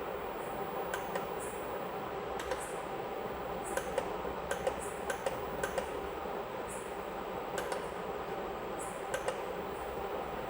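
Small plastic clicks at irregular moments, often two or three close together, like remote-control buttons being pressed, over a steady background hum.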